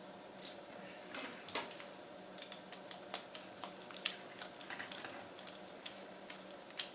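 Faint, irregular small clicks and scrapes of a screwdriver and copper wire against the screw terminal of an electrical outlet as the white wire is hooked under the silver screw and tightened, with a couple of sharper clicks about one and a half and four seconds in.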